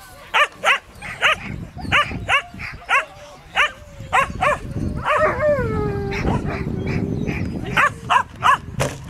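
Shetland sheepdog barking over and over in short, sharp barks, two or three a second, as it runs an agility course.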